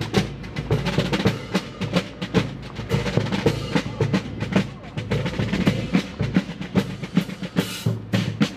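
Military marching band's snare and bass drums playing a marching cadence: quick sharp strokes in a steady rhythm.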